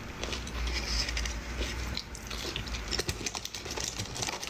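Close-miked chewing: a dense run of wet clicks and crunches from a mouth eating food, with a low steady hum underneath.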